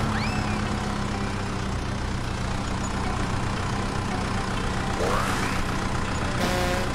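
Heavy truck engine idling steadily with a low rumble, with a short rising swoop near the start and another rising glide about five seconds in.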